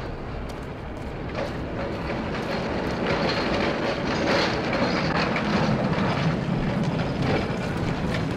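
Tram rolling along street rails, its wheels clattering with sharp metallic clicks over a steady rumble, growing louder over the first few seconds.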